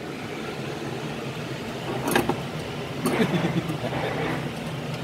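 A steady low mechanical hum, with two sharp clinks about two and three seconds in as a utensil knocks against the stainless-steel mesh colander holding the fried mackerel steaks.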